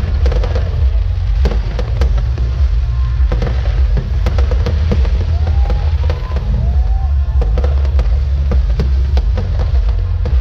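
Aerial fireworks display: rapid, irregular bangs and crackles from bursting shells throughout, over a constant low rumble.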